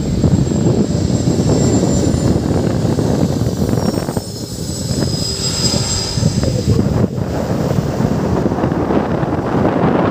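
Airliner passing low on its landing approach, its engines making a loud steady rumble with a faint high whine that slowly falls in pitch.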